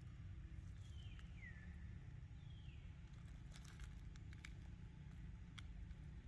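Faint ambience with two short animal calls, about a second apart, each sliding down in pitch. A few light clicks follow.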